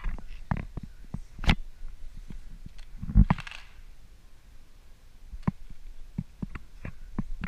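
Coins clinking one at a time against each other and a clear plastic jug, with a louder clatter of coins about three seconds in.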